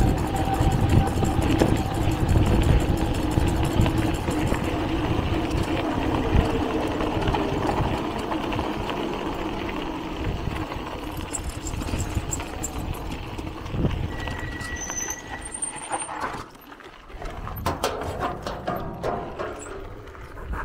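A motor engine running with a steady note that sinks slightly lower as it slowly fades. About sixteen seconds in it drops away, leaving faint scattered clicks and knocks.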